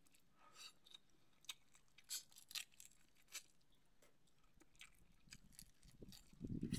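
Faint eating sounds of shellfish being eaten by hand: scattered wet lip smacks and clicks as meat is picked from a shell and sucked off it, then a louder stretch of chewing near the end.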